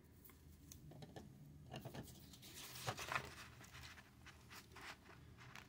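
Pen writing a number on a sheet of paper: a few faint, short scratching strokes, the loudest about two to three seconds in.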